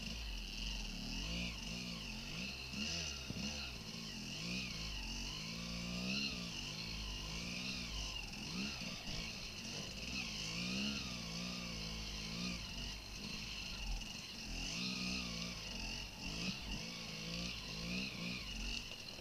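Off-road motorcycle engine revving up and down repeatedly as the throttle is worked, over a steady high hiss.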